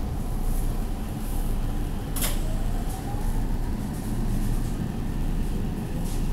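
JR 313 series 2600-subseries electric train pulling away from a station: the traction motors give a faint whine that climbs steadily in pitch as the train gathers speed, over a steady running rumble. A single sharp click about two seconds in.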